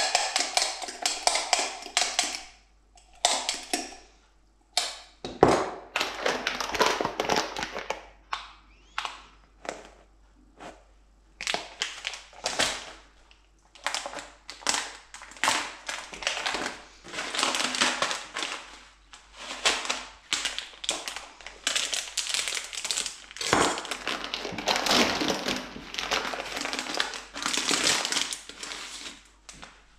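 Plastic rice paper packaging crinkling and rustling as it is handled and pulled open, in irregular bursts with scattered taps and knocks. In the first couple of seconds, a spoon clicks against a glass jug as a sauce is stirred.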